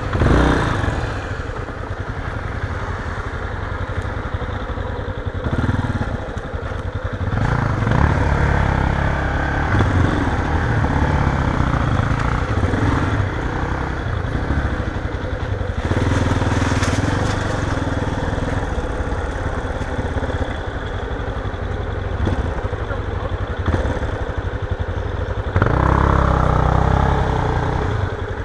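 Yamaha Ténéré 250 motorcycle's single-cylinder engine running along a sandy trail, its pitch rising and falling with the throttle. It gets louder for a stretch near the end.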